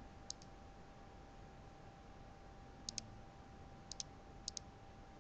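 Computer mouse clicking faintly, four times, the last three each as a quick pair of clicks, over a faint background hiss.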